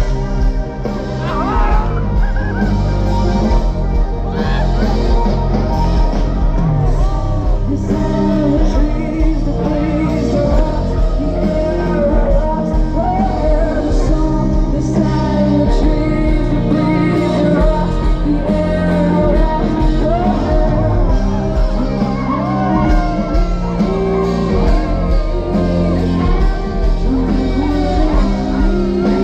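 Live band playing loud through a PA, a singer's voice over electric guitars, bass, drums and keyboard.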